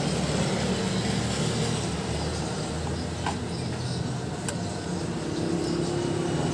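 Steady low engine rumble of a motor vehicle running, with a couple of faint clicks around the middle.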